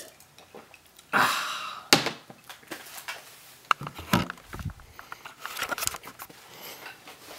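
A person drinking from a soda can. About a second in there is a breathy burst lasting about a second, then a sharp click, then scattered short knocks and handling sounds from the can.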